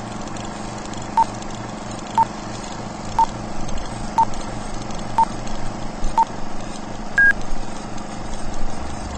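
Film-leader countdown beeps: six short, same-pitched beeps one second apart, then one longer, higher beep about seven seconds in. Under them runs a steady hiss with a low hum and rattle, like a film projector running.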